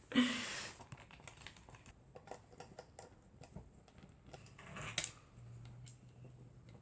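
Scattered faint clicks and ticks of a screwdriver turning small screws out of a vintage Fender Duo Sonic guitar. A brief rustle comes at the start and a louder brush of noise about five seconds in.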